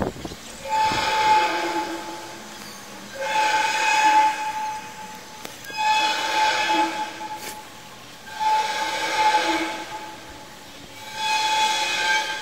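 The 'strange sky sound' recorded in Kiev, played back at triple speed: a series of loud, horn-like blasts rich in overtones, each swelling and fading, five of them at a steady pace of one every two and a half seconds or so. The uploader hears it as massive resonant air bursts from a large metallic tube; what actually made it is unknown.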